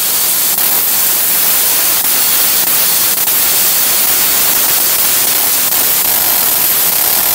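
Tenya Cut 80 air plasma cutter, fed by its built-in compressor, cutting through thick steel plate: a loud, steady hiss of the arc and air jet with a faint crackle.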